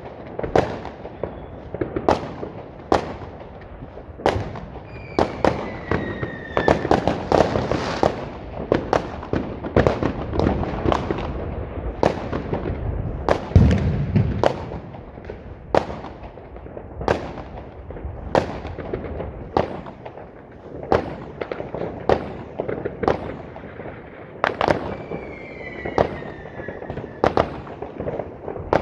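Street fireworks: a near-continuous run of sharp bangs and crackling from firecrackers and shells, with two falling whistles, one a few seconds in and one near the end. One heavier, deeper boom comes about halfway through.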